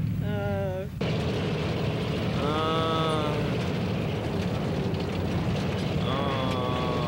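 An old car driving over a bumpy dirt track, its engine and rattling body making a steady, noisy rumble. Three short wavering pitched sounds rise over it: one near the start, one about two and a half seconds in, and one from about six seconds in.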